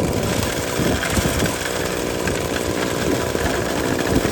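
Small gasoline engine of a Royal dry washer's blower running steadily at a constant speed, driving air through the washer while gravel is run through it.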